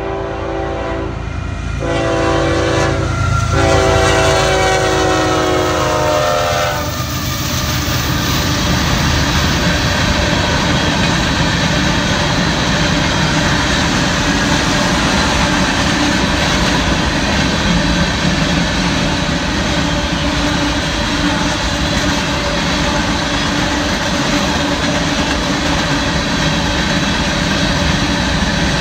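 Union Pacific freight locomotive's horn sounding for the grade crossing: two short breaks, then a long blast that slides slightly lower in pitch and stops about seven seconds in. After it, the steady rolling noise and wheel clatter of covered hopper cars passing.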